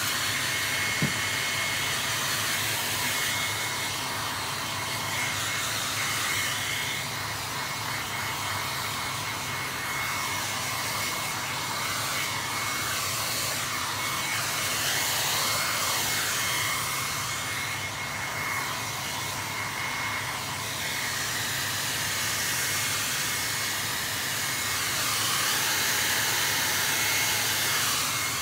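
Handheld hair dryer blowing steadily with a thin, high motor whine, drying freshly sprayed leather lacquer; its level swells a little as it is moved over the seat.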